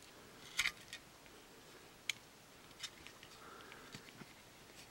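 Faint, scattered clicks and a soft scrape from small plastic and metal parts: the button of a Fisher-Price Construx Power Pack being pressed while a small strip of sandpaper is worked between its metal contact strips to clean off corrosion.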